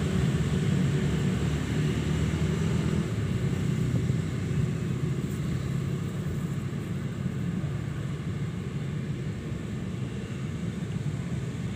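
Strong wind buffeting the microphone: a steady low rumble that eases a little over the last few seconds.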